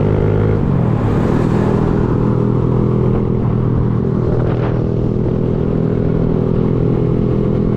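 Kawasaki Z125 Pro's 125cc single-cylinder four-stroke engine running under way. The revs fall about half a second in, then the engine holds a steady lower pitch.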